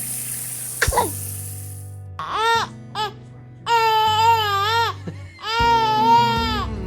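Young baby girl letting out a run of wavering, cry-like wails: two short ones, then two long drawn-out ones of about a second each. Background music plays underneath.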